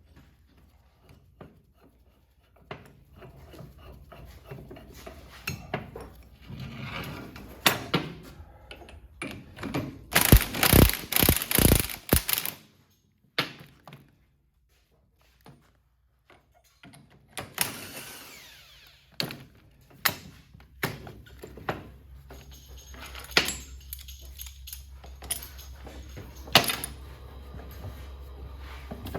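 Shop work on metal parts: scattered knocks and clanks of tools and parts, with a loud burst of power-tool noise about ten seconds in lasting a couple of seconds. The sound drops out for a few seconds and then resumes with more knocks over a steady low hum.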